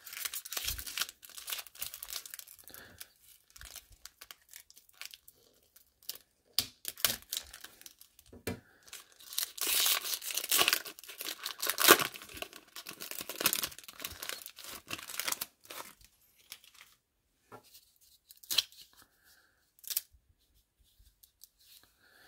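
Foil wrapper of a 1994 Score baseball card pack being crinkled and torn open in bursts of crackling, loudest from about ten to fifteen seconds in. It thins out to a few faint clicks and rustles as the cards are handled.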